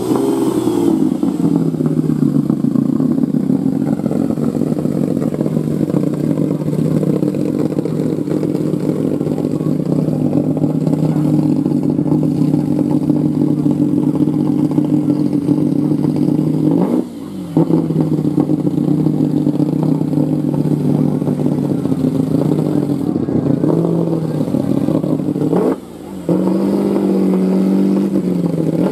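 Lamborghini Diablo SE30 Jota's 5.7-litre V12 running loudly at idle through its open exhaust, the revs falling from a blip at the start. Twice in the second half the sound dips briefly as the revs drop and pick up again, and near the end the engine holds a slightly higher speed.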